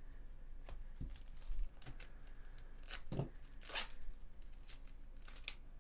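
Plastic wrapper of a Bowman Chrome trading card pack being torn open and handled, in a series of short rips and crinkles, the longest near the end.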